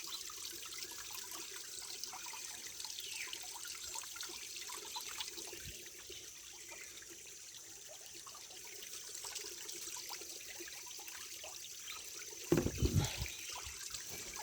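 Small natural waterfall trickling and splashing steadily. Near the end comes a brief cluster of low thumps, louder than the water.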